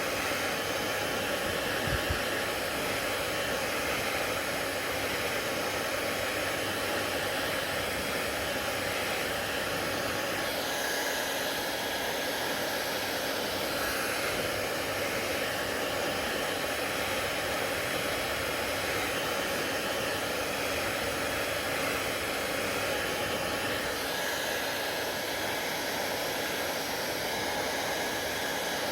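Hair dryer running steadily: a constant rush of air with a faint steady whine from the fan, and one brief low thump about two seconds in.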